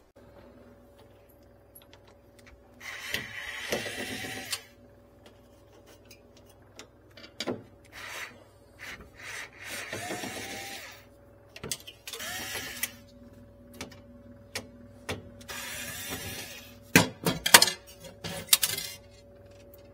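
Small cordless electric screwdriver whirring in several short bursts, each rising briefly as the motor spins up, as it drives the screws holding a refrigerator evaporator coil, under a faint steady hum. Near the end comes a cluster of sharp metallic clatters as the aluminium-finned coil is handled and pulled free.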